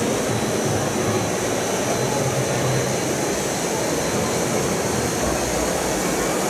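Steady background noise of a large exhibition hall, an even rush with no distinct event standing out.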